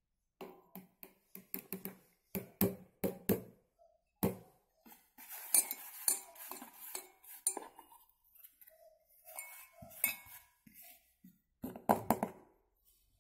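A plastic bowl knocked repeatedly against the rim of a stainless steel bowl to shake out powdered sugar, a quick run of taps, then rustling and scraping as the sugar is wiped out by hand, and a few more knocks near the end.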